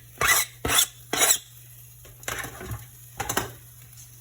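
A spoon scraping chopped celery and onion out of a bowl into a cooking pot: a run of quick scrapes, about two a second, then a few softer, more spaced-out ones.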